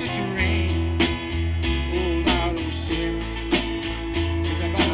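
A live band plays a gospel song: strummed acoustic guitar over held bass notes and a steady drum beat.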